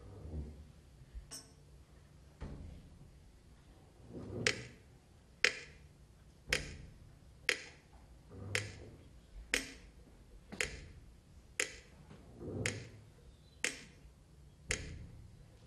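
Orchestral percussion playing a slow, steady beat of sharp clicks about once a second. A deeper drum thump falls on roughly every other click. The first few seconds hold only a few scattered knocks.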